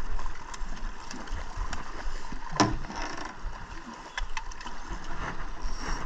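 Water sloshing against the side of a small aluminium boat, with a few light clicks and one sharp knock about two and a half seconds in.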